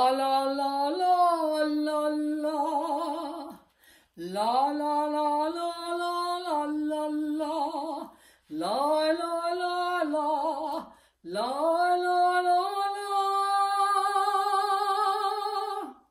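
A woman singing solo in long, held notes with vibrato, in four phrases with short breaths between them.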